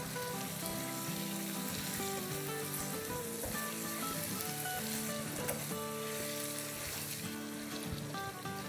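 Keema (minced meat) with yogurt and green chillies sizzling steadily in a hot nonstick pan while it is stirred and mixed with a silicone spatula.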